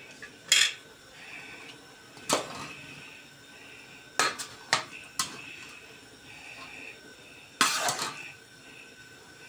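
A spoon clanking and scraping against the side of a large aluminium pot as chopped eggplant is stirred: single knocks about half a second in and after two seconds, a quick cluster around the middle, and a longer scrape near the end.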